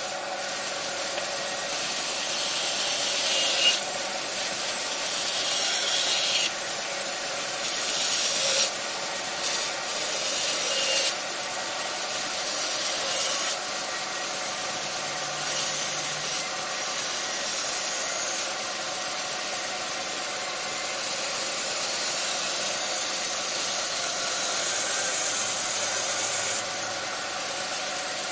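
Bandsaw running steadily while its blade cuts a wooden board along a curved line for a furniture leg.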